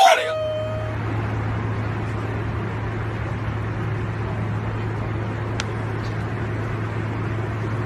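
Steady airliner cabin noise: an even hiss with a low hum underneath, unchanging throughout, with one faint click near the middle.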